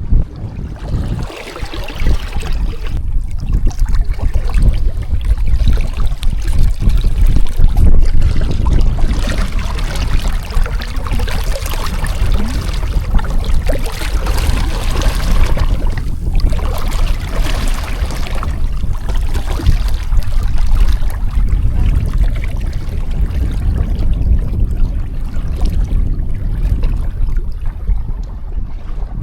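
Water rushing and trickling along the hull of a San Juan 21 sailboat under way, with a steady low rumble of wind on the microphone.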